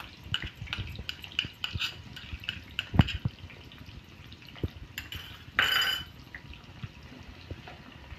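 Cashews, almonds and dates frying in hot ghee in a metal kadhai, crackling, while a steel spoon stirs them and scrapes and knocks against the pan. There is one sharp knock about three seconds in and a short ringing scrape near the middle.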